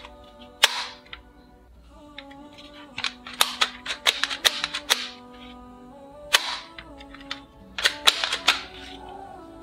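Sharp plastic clicks from a toy revolver-style blaster as its cocking handle is worked by hand. There is one click under a second in, a quick run of clicks about three to five seconds in, and another run near the end, all over steady background music.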